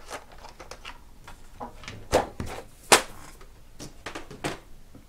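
Wooden colored pencils clicking and clacking as they are picked out of their tin tray and set down, with two louder knocks about two and three seconds in as the tin is handled.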